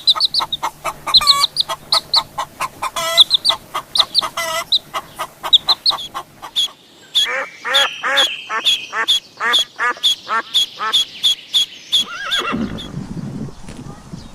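Animal calls: a rapid run of short, sharp chirping calls, then a regular series of short rising-and-falling calls about two a second, ending in a lower, rougher sound near the end.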